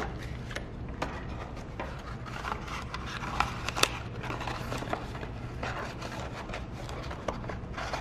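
Folded paper and card being handled: soft rustling and crinkling with scattered light clicks and taps, the sharpest click a little under four seconds in.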